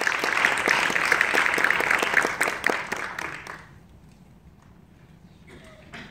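Audience applauding, then dying away about three and a half seconds in to a quiet hall with a few stray claps and a short sound near the end.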